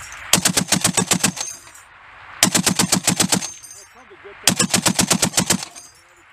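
Tripod-mounted M2 Browning .50 caliber heavy machine gun firing three short bursts, each about a second long at about ten rounds a second, with a second's pause between bursts.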